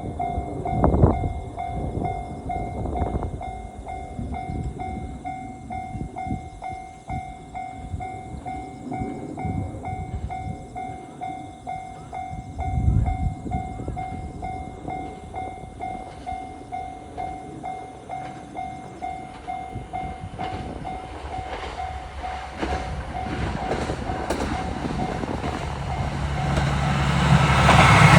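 Japanese railroad crossing warning bell ringing in a steady, fast repeating kan-kan rhythm. Near the end a KiHa 185 series diesel train approaches with a rising rumble that grows louder than the bell.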